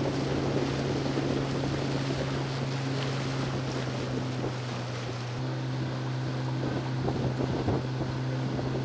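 Outboard motor of a Zodiac inflatable boat running at a steady pitch, with water splashing along the hull and wind buffeting the microphone.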